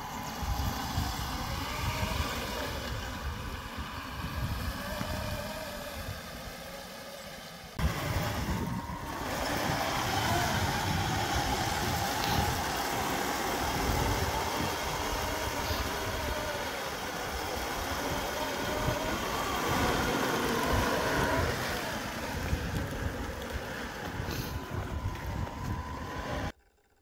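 Electric drive motors and gearboxes of a 1/10-scale RC Jagdpanther tank whining, rising and falling in pitch as it drives through deep snow, over a low rumble. The sound gets louder about eight seconds in and stops suddenly near the end.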